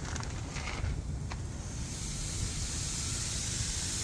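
Steak fries frying in shallow peanut oil on a flat-top griddle: a steady hissing sizzle that grows louder about two seconds in, over a low rumble.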